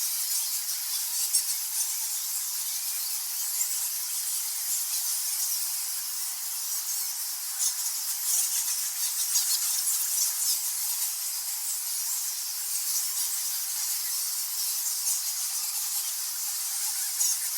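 A large colony of nectar bats in a cave squeaking and screaming, thousands of high, overlapping squeaks that merge into a steady, shrill chatter.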